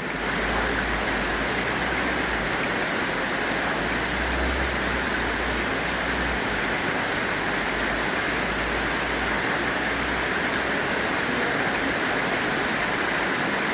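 Heavy rain pouring down in a steady, dense hiss, with a low rumble coming and going underneath.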